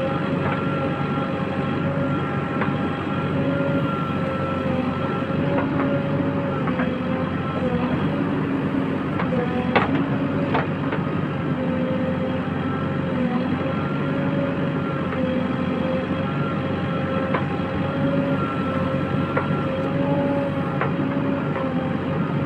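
JCB 3DX backhoe loader's diesel engine running steadily under a high hydraulic whine that wavers slightly in pitch, with two sharp knocks a little under halfway through.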